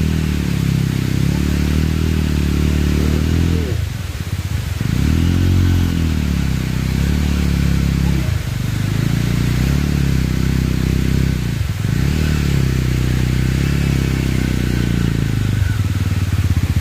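Bajaj Pulsar 220 motorcycle engine revving hard in repeated surges about every four seconds, the pitch rising and falling with each one. This is the engine labouring under load as the bike is forced up a rocky off-road climb.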